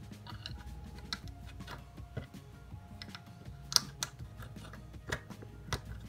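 Plastic Lego bricks clicking and snapping as they are pressed together and handled by hand: a string of irregular sharp clicks, the loudest just under four seconds in.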